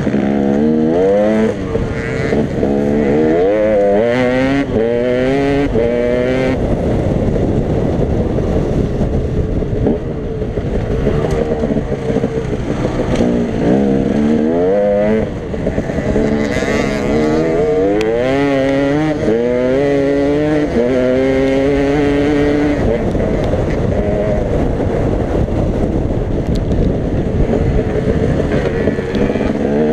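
Dirt bike engine heard from the rider's helmet, revving up repeatedly through the gears in rising sweeps, each falling back at a gear change, with stretches held at steadier speed between.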